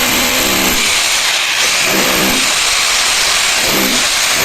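Electric drill boring holes into a masonry wall, making a loud, steady grinding noise.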